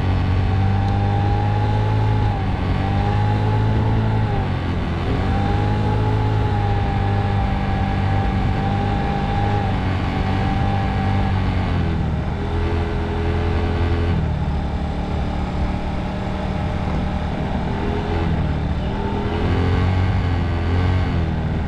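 Scooter's motor running during the ride. Its pitch drops and climbs again a few times as the scooter slows and picks up speed, with a thin steady whine above it.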